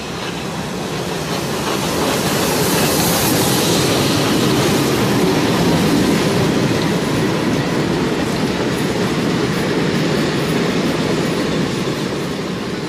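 A train passing on the track, its wheels running over the rails; the sound swells over the first couple of seconds, holds, and eases off near the end.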